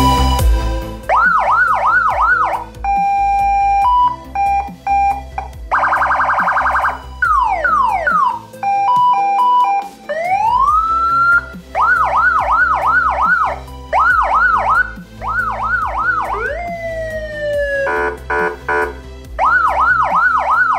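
Electronic vehicle siren (CJB-10094A amplifier driving a horn speaker) cycling through its tones. Fast yelping sweeps come about five a second and return several times. Between them are two-tone hi-lo beeps, a rapid warble, falling sweeps and a slow rising wail.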